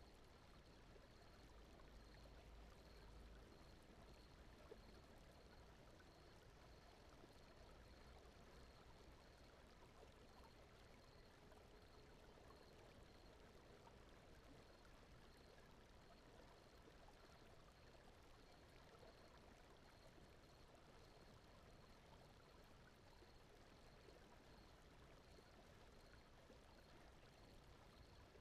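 Faint, steady sleep soundscape: a soft, even stream-like water wash over low brown noise, with a faint high pip repeating about twice a second throughout.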